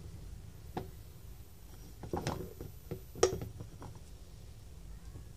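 A few light clicks and taps from a thin metal pick being worked through soft pitha dough on a ceramic plate, the loudest a little over three seconds in, over a low steady hum.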